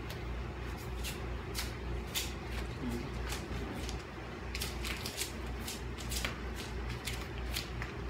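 Rustling and rubbing of a cleaning cloth and wipes on a wooden desk, with scattered light clicks and knocks as things are handled, over a steady low hum.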